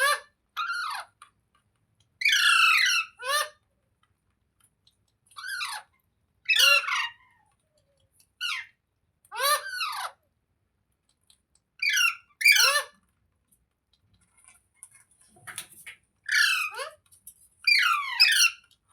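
Green ringneck parrot giving repeated harsh squawks: about a dozen short calls, many in pairs, each sliding down in pitch, with brief silences between them.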